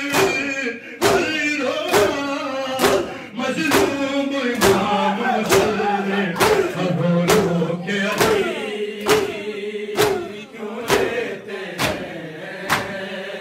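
Matam: mourners striking their chests in a steady rhythm, about one strike a second, under a group of men chanting a noha lament.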